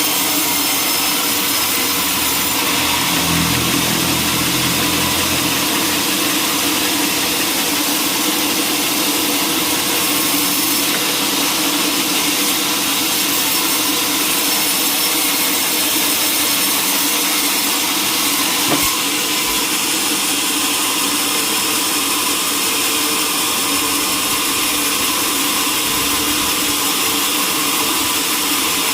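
Sawmill machinery running steadily: a constant mechanical whir with a strong hiss, with little change throughout.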